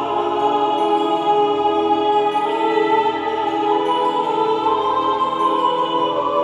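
Background music of slow, sustained chords, the low note changing about every second and a half.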